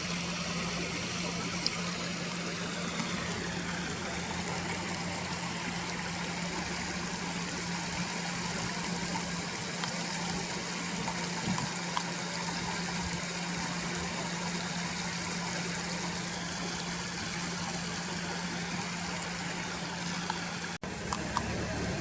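Steady rushing of a flowing river, with a low steady hum underneath. The sound drops out for an instant near the end.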